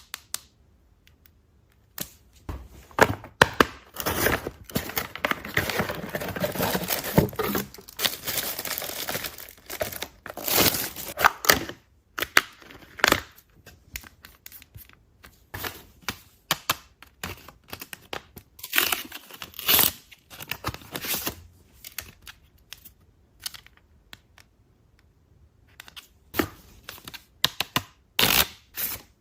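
Packaging being torn open and crinkled by hand: a long stretch of tearing and rustling a few seconds in, with short sharp clicks and taps before and after it.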